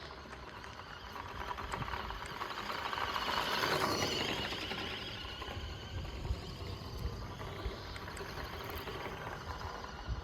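1:14-scale RC Audi RS Q e-tron driving over dirt: electric motor and tyres on the ground, getting louder to a peak about four seconds in, then fading as the car passes.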